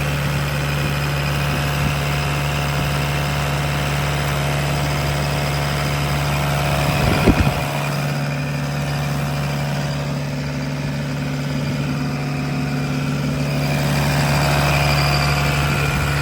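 Bobcat E80 excavator's Yanmar diesel engine running steadily at raised throttle, heard from outside the machine; it is running well. A brief louder sound breaks in about seven seconds in.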